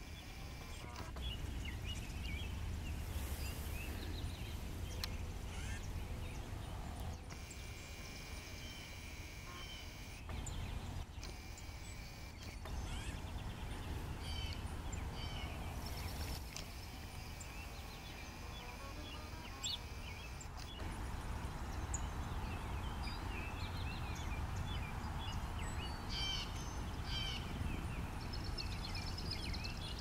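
Several small songbirds chirping and calling on and off, over a steady low rumble.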